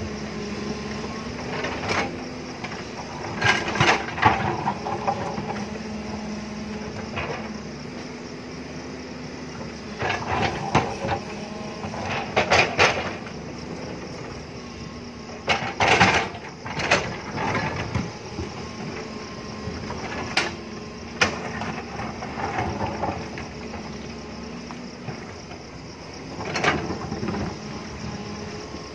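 JCB tracked hydraulic excavator's diesel engine running steadily under load as the bucket digs and shifts earth and rock. Clusters of sharp clanks and knocks come every few seconds, loudest around the middle.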